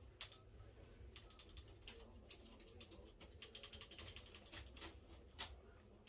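Light, sharp mechanical clicks from a mountain bike trigger shifter being worked by hand as the old gear cable is taken out of it, with a quick run of clicks about halfway through.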